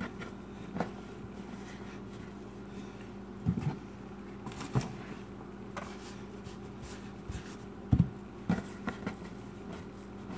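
Hands pressing and rolling soft sugar cookie dough on a countertop: scattered thumps and taps as palms and dough hit the counter, the loudest about eight seconds in, over a steady low hum.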